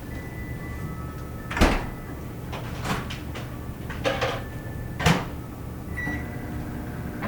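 Microwave oven door and cabinet clunks: four sharp knocks, the loudest about one and a half seconds in, over a steady hum, with a short high beep about six seconds in.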